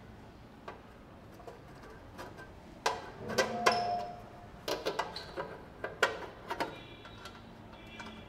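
Irregular light knocks and clicks from handling the motorcycle's metal parts, a few close together in the middle, one followed by a brief metallic ring.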